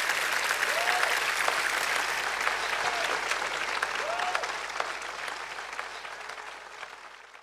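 Audience applauding, a dense steady clatter of clapping that fades out near the end.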